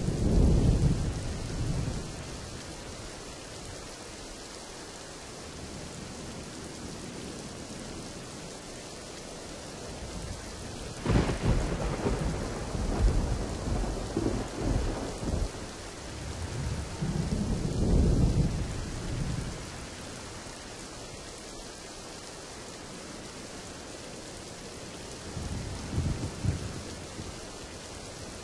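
Thunderstorm: steady rain with rolling thunder. A rumble at the start, a sharp thunderclap about eleven seconds in that rolls on in waves for several seconds, and a fainter rumble near the end.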